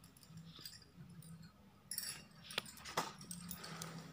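Faint handling of a paper workbook: a page rustles as it is turned about halfway through, with a few light clicks just after.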